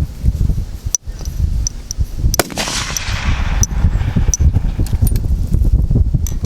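Two fullbore target rifle shots, a sharp crack about a second in and another about two and a half seconds in, the second trailing off in a hiss. A steady low wind rumble on the microphone runs underneath.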